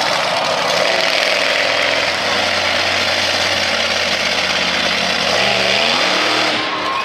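Monster truck engine running hard under throttle, with a rising rev about five and a half seconds in as the truck climbs and bounces over a dirt mound.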